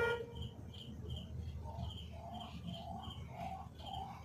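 Voltas washing machine running quietly with a low hum, its dried-out buffer freshly greased so the spin noise is gone. Short chirps repeat about twice a second over the hum.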